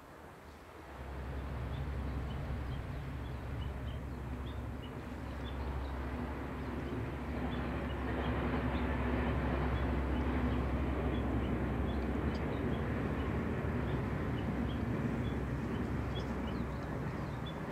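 Distant JNR DE10 diesel-hydraulic locomotive's V12 engine drone, steady and low, with the rumble of the train rolling by. It rises about a second in and swells a little toward the middle as the train passes. It is hauling KiHa 47 railcars that are dead after flood damage, so all the engine sound is the locomotive's. Short high bird chirps repeat over it.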